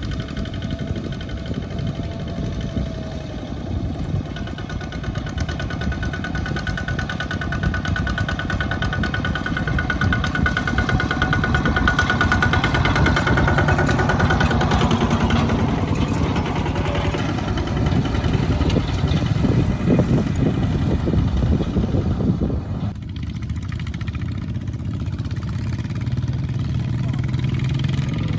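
Two-wheel walking tractor's single-cylinder diesel engine running as it hauls a loaded trailer, growing louder as it comes close. About three-quarters of the way through the sound cuts suddenly to a quieter, steadier engine hum of tractors farther off.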